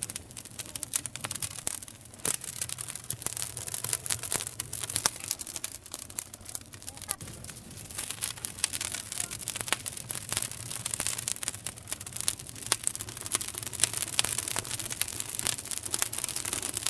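Wood fire burning, crackling steadily with many small sharp pops at irregular intervals.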